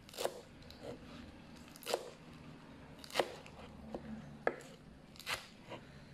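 Kitchen knife chopping through crisp leafy-green vegetable stalks on a cutting board: separate sharp cuts, roughly one a second.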